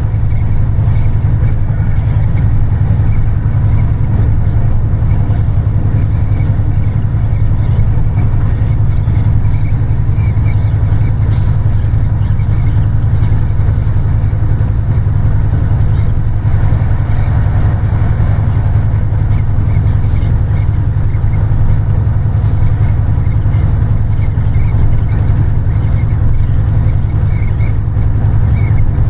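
Passenger train running along the rails: a steady low rumble with a few sharp clicks.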